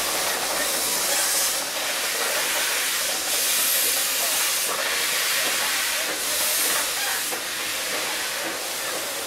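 A 1915 Baldwin 0-6-2T narrow-gauge steam tank locomotive moves slowly past, hissing steam loudly. The hiss swells and eases in surges a second or two long, then fades a little near the end as the engine pulls away.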